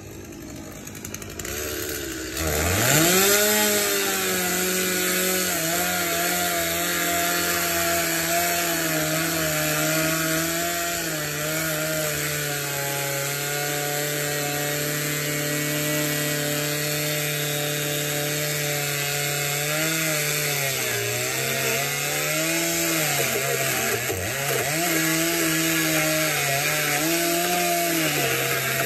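Two-stroke gas chainsaw revving up sharply about two and a half seconds in, then running at high speed as it cuts through a fibreglass boat hull. Its pitch dips and recovers several times near the end as the chain bogs under load.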